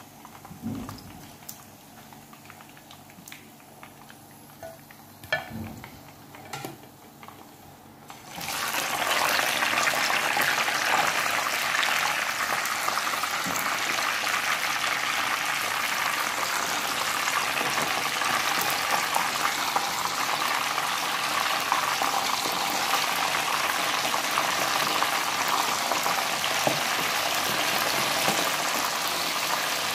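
Boiled chicken pieces frying in hot oil in a pan. A few light clicks and knocks at first, then about eight seconds in a loud, steady sizzle starts suddenly as the pieces go into the oil, and it keeps going.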